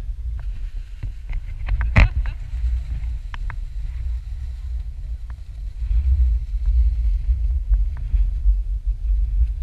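Wind buffeting the camera microphone: a gusting low rumble, with scattered light clicks and one sharp click about two seconds in.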